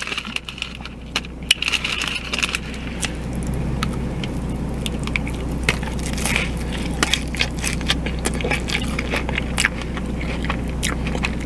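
Chewing and crunching a hard-shell taco, with many small sharp crunches over a steady low hum.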